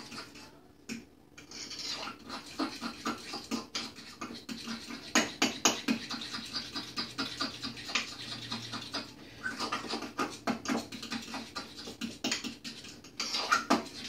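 Fork stirring a thick cream cheese mixture in a bowl: quick, repeated scraping and clicking of the fork against the bowl.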